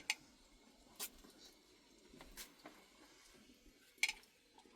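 Quiet, broken by four short, sharp clicks or taps: one right at the start, one about a second in, one about two and a half seconds in and one about four seconds in.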